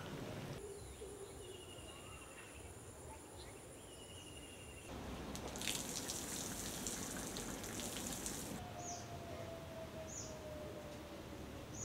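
Garden ambience of insects and birds. For the first few seconds there is a steady high insect buzz with short repeated trills. A louder, hissing insect chorus follows for a few seconds, then a few short chirps and one long, slowly falling whistle.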